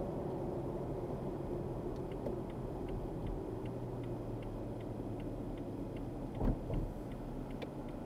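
Car cabin road noise, a steady low rumble as the car slows. From about two seconds in, a turn-signal indicator clicks evenly, about two and a half times a second. Two dull thumps come close together past the middle.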